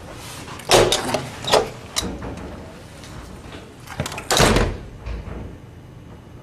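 A door being opened and shut: two loud bangs, the first about a second in and the second past the halfway point, with a few smaller knocks and clicks between them.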